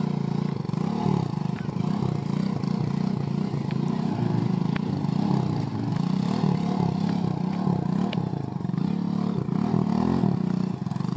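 Small motorcycle engine running at low revs, its pitch rising and falling with the throttle as the bike creeps along a rutted mud path.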